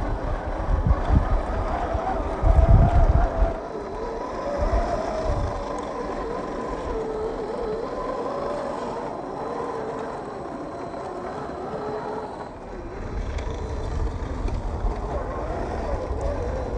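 Electric drive motor and gears of a 1/10-scale RC crawler whining, the pitch wavering up and down with the throttle. Heavy low rumbles come in the first few seconds and again near the end.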